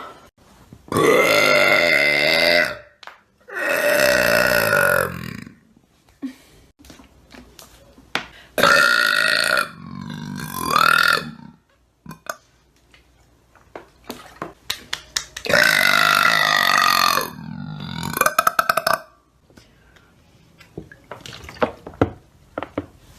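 A woman burping: a series of about five long, loud burps, each lasting one to two seconds, some bending in pitch, with pauses between them.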